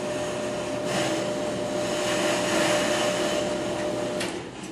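Ammco bench brake lathe running steadily on a brake rotor with a machine hum and a steady whine; the sound drops away near the end.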